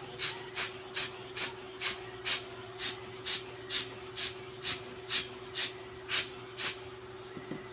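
A hand bulb air blower puffing air in quick, even squeezes, about two a second, stopping about seven seconds in. It is blowing dust and cleaning fluid off an automatic watch's mainplate during cleaning.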